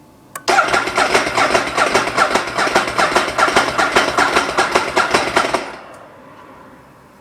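Ducati 1098 L-twin engine being cranked on the electric starter: a click, then about five seconds of even, rapid cranking strokes that stop suddenly without the engine firing. The bike will not start after about four months of winter storage, despite a new battery.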